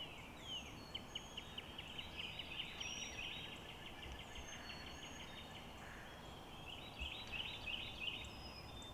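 Outdoor birdsong: several birds chirping, with rapid trills and quick downward-sweeping notes over a steady background hiss.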